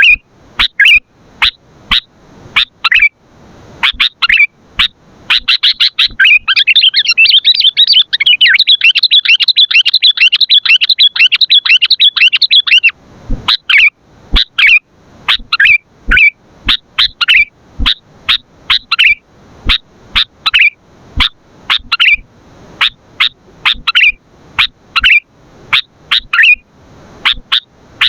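Sooty-headed bulbul (kutilang) calling loudly in a run of short, sharp chirps. About five seconds in, the chirps run together into a rapid, unbroken chatter for about seven seconds, then the separate chirps return.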